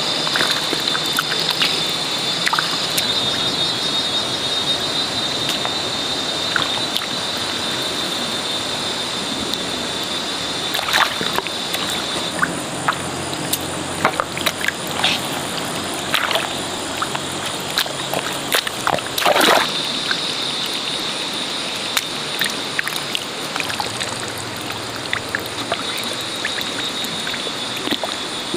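Hands digging and groping in wet mud for mussels: sloshing and squelching, with scattered sharp splats of mud and water over a steady wet hiss. A steady high-pitched tone runs in the background, dropping out about halfway through and returning near the end.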